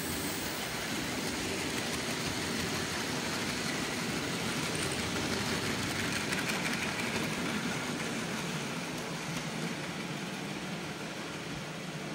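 OO gauge model goods wagons rolling past on the layout's track: a steady rumble of small wheels on rail, swelling slightly around halfway as the train passes closest.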